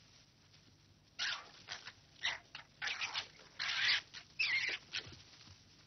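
Red foxes fighting: a string of short, harsh, raspy screeches and yelps starts about a second in and runs for about four seconds.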